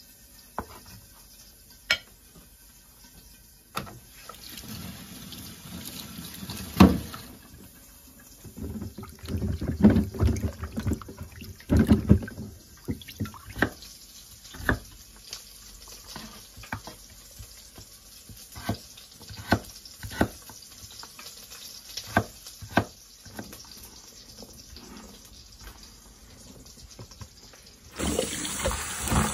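Kitchen sink in use: running tap water with scattered clinks and knocks of dishes and utensils being handled, and a louder rush of water near the end.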